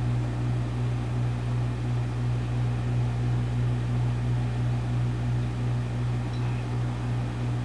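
Microwave oven running with a steady low hum while heating a half bar of Ivory soap.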